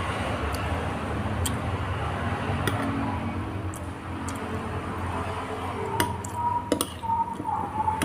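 A metal spoon clinking and scraping against a plate while eating, in scattered sharp clinks that come closer together near the end, over a steady background hiss. A thin steady tone comes in about six seconds in.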